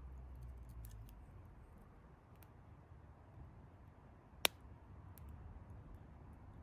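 Campfire crackling faintly: scattered small ticks, with one sharp pop about four and a half seconds in.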